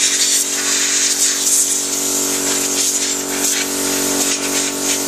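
Compressed air from an air-compressor hose hissing into an open desktop computer case, swelling and fading unevenly as it is aimed around the parts, over a steady hum.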